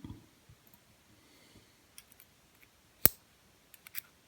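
A few light clicks and ticks of small padlock pins and tweezers being picked up and set down, with one sharp click about three seconds in.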